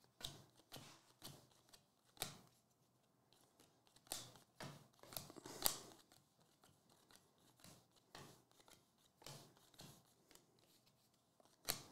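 Faint, sharp snaps and slides of 2023 Bowman Draft baseball cards being flipped one at a time through a stack in the hands, coming irregularly, with the loudest snap about six seconds in.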